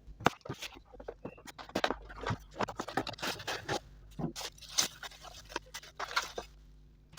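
Packaging being handled as a boxed electronic keyboard is unpacked: irregular rustling, scraping and light clicks and knocks.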